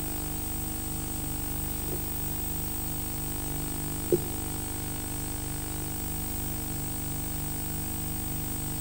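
Steady electrical hum and hiss with a faint, regular low pulsing. A single sharp knock comes about four seconds in, with a fainter click shortly before it.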